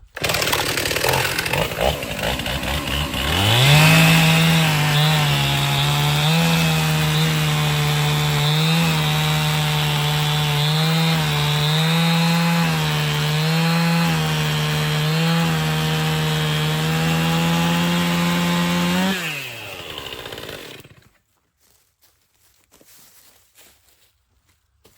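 Stihl chainsaw idling, then opened to full throttle about three and a half seconds in and held there for about fifteen seconds while cutting through a log. Its pitch dips briefly every second or two as the chain bogs in the wood. Near the end the throttle is released, the engine winds down and the saw stops.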